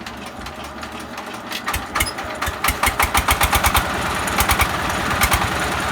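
Small diesel engine being hand-cranked into life: a few separate firing knocks about two seconds in quicken into regular firing, and it settles into running.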